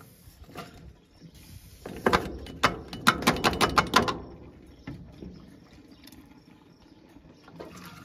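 Pickle relish and its brine pouring through a canning funnel into a glass Ball jar: a wet sloshing and splattering, with a quick loud run of clicks and clinks between about two and four seconds in, then quieter settling.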